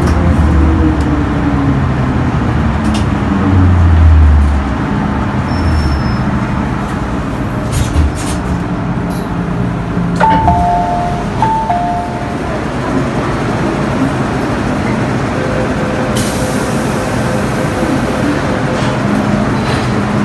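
MTR Island Line M-Train (Metro-Cammell EMU) braking into a station: its traction motors whine and the whine falls in pitch as the train slows to a stop, over a steady rumble of train and tunnel noise. About ten seconds in, a falling two-note chime sounds twice, followed later by a hiss.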